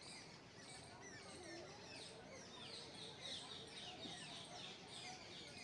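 Faint, dense chatter of many small birds chirping at once, a steady stream of short, quickly falling chirps.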